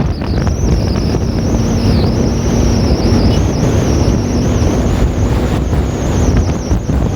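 Steady low rumble of a bus engine and road noise, with wind buffeting the microphone. A faint steady tone rides over it through the middle, but no telolet horn melody stands out.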